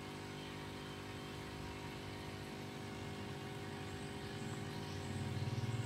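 A steady machine hum made of several even tones, growing a little louder about five seconds in.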